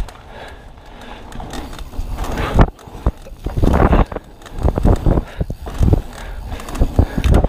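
Trail noise from a full-suspension 29er mountain bike on a dirt singletrack descent: tyres rumbling over the dirt, with many irregular thumps and rattles as the bike hits bumps. Wind rushes over the microphone, and the knocking gets busier after about two seconds.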